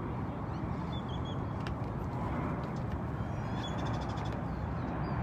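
Steady wind rumble on the microphone over open water, with a few faint bird chirps about a second in and again near four seconds.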